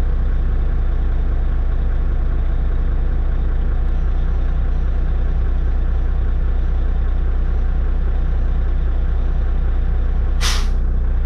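Volvo D13 diesel engine idling steadily, heard from inside the truck's cab, with one short sharp hiss of air from the truck's air system about ten seconds in.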